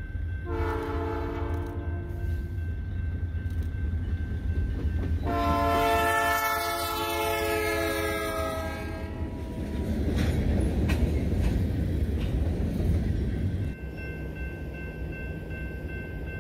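A Montana Rail Link diesel freight locomotive sounds its multi-note air horn twice, a short blast and then a long one lasting about four seconds. The locomotive and its cars then pass close by with loud engine and wheel noise, which cuts off suddenly near the end.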